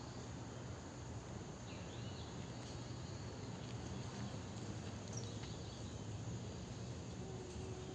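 A few faint, high animal chirps, about two seconds in and again around five seconds, over a steady background hiss and low hum.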